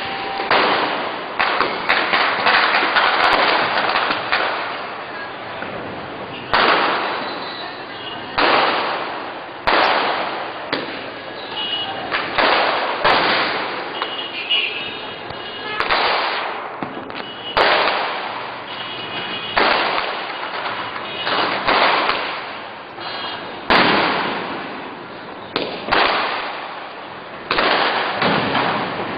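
Firecrackers going off one after another in the street, a sharp bang every second or two, each followed by a ringing echo that fades before the next.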